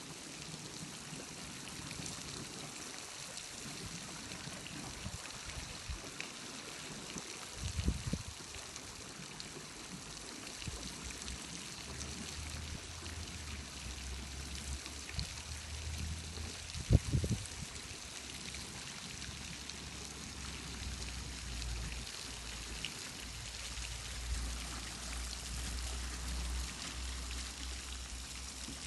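Steady rush of running water, with a low hum joining about a third of the way through and two brief thumps.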